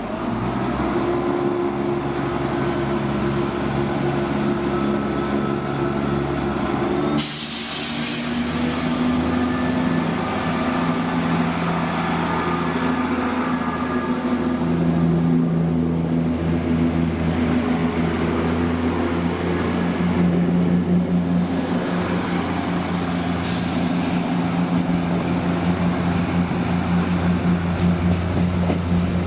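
Diesel train engine running at a steady note, with a short sharp hiss of air about seven seconds in, after which the engine note shifts and holds steady again.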